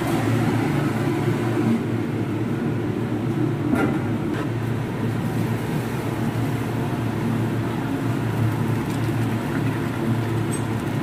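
Boiled basmati rice and its hot water being poured from a large aluminium pot into a perforated steel colander in a sink, a steady rushing splash of draining water, with a couple of light metal clicks around four seconds in. A steady low hum of kitchen ventilation runs underneath.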